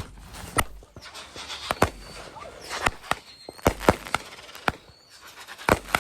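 Fireworks going off: a string of sharp, irregularly spaced bangs and cracks, about a dozen, some coming in quick pairs.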